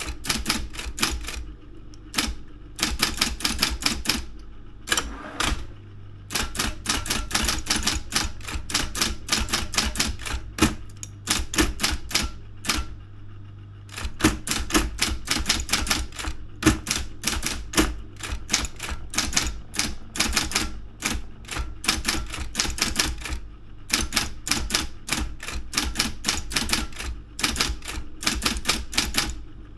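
Daro 202 electric typewriter being typed on: fast runs of sharp keystroke clacks broken by short pauses, with a steady low hum underneath.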